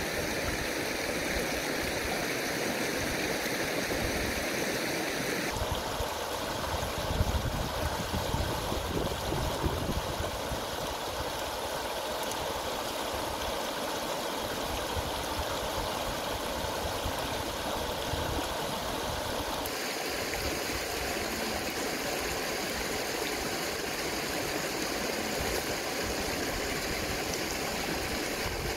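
Shallow river rushing steadily over rocks and stones, its tone changing abruptly twice.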